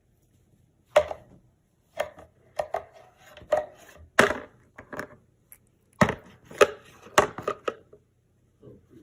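A series of sharp, irregular knocks or taps on a hard surface, about a dozen in all, with a dense cluster between about six and eight seconds in.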